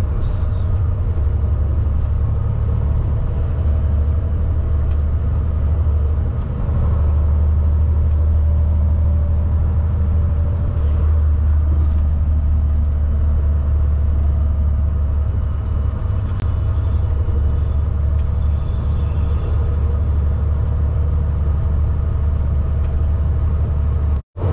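Semi truck's diesel engine and road noise inside the cab while driving, a steady low drone. The sound cuts out for an instant near the end.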